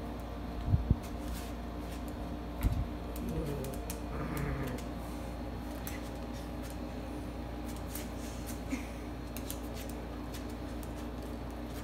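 A small dog's claws clicking and tapping on a laminate floor as it moves about, with two low thumps near the start and a steady low hum underneath.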